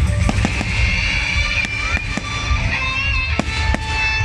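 Fireworks going off in a rapid, uneven series of sharp bangs and crackles, over a constant low rumble and held high tones.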